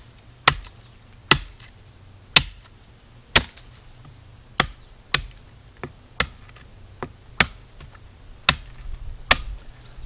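A Tramontina machete chopping into a hand-held stick of hard, dense wood: about a dozen sharp strikes, roughly one a second and unevenly spaced.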